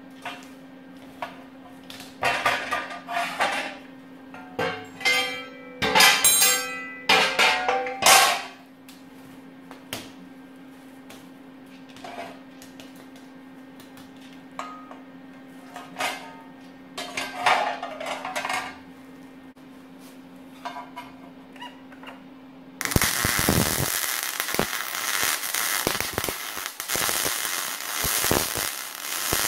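Steel plate and square tubing clanking and scraping as they are handled and set in place on a concrete floor. About 23 seconds in, a stick welder's arc strikes and crackles steadily, loud.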